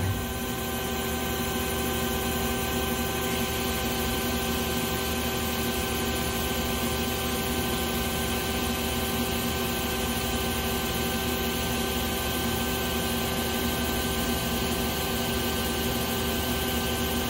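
Okuma CNC slant lathe running steadily, its spindle and machine drive holding several constant tones over an even hum, while a drill feeds into a spinning Turcite rod.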